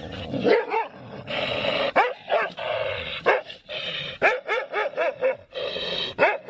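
A dog barking and yipping in a quick series of short calls.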